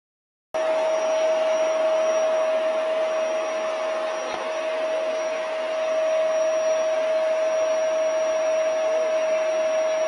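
A household appliance's electric motor running steadily, a constant whine over a rushing hiss, starting abruptly about half a second in.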